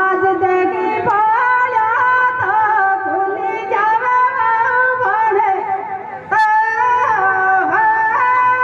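A woman singing a Rajasthani Tejaji folk song in long, held high notes over a sustained accompaniment, with a brief drop about six seconds in before the next phrase begins.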